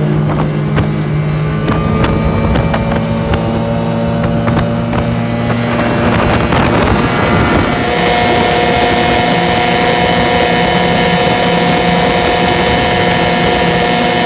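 Small outboard motor running flat out on a planing aluminium dinghy, driving a homemade 13-pitch cleaver propeller on a modified lower unit, with water rush and wind on the microphone. About eight seconds in, the engine note turns higher and steadier and the water rush grows louder.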